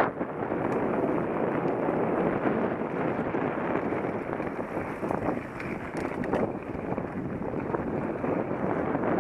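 A mountain bike being ridden over a trail: tyre noise and rattling with scattered small knocks, under steady wind buffeting the camera microphone.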